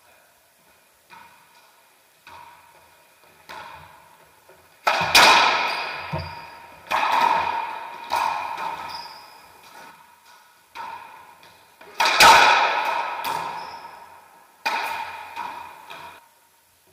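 Racquetball rally in an enclosed court: a series of hard cracks as the ball is struck by racquets and rebounds off the walls, each hit echoing off the hard walls. The hits come irregularly, the loudest about five seconds and twelve seconds in.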